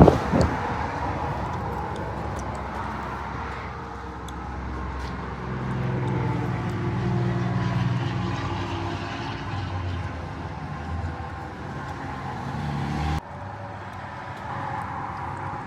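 A motor vehicle's low engine hum over steady road-type noise, swelling and easing in pitch and level. About thirteen seconds in it drops off suddenly to a quieter steady noise.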